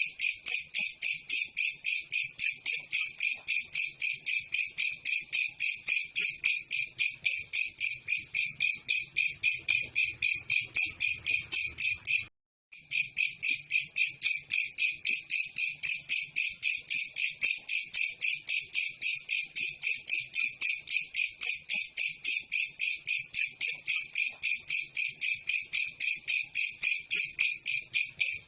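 Belalang kecek insect calling: a long, even train of rapid, high chirps, broken once by a sudden half-second gap about twelve seconds in.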